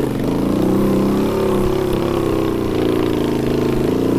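Suzuki DR-Z125L single-cylinder four-stroke dirt bike engine pulling up a steep dirt climb, its revs rising and falling as the throttle is worked.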